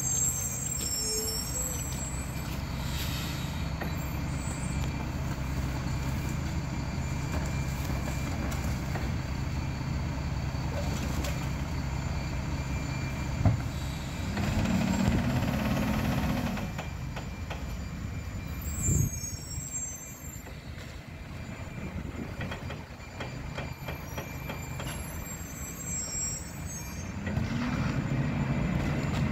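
Mack GU garbage truck's diesel engine running steadily, growing louder for a couple of seconds just past halfway and again near the end. A sharp bang comes just before the first rise and a knock a few seconds after it, with short bursts of air hiss from the truck.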